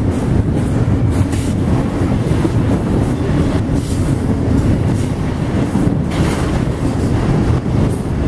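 Double-stack intermodal freight train rolling past at speed close by: a loud, steady rumble of steel wheels on rail from the passing container cars.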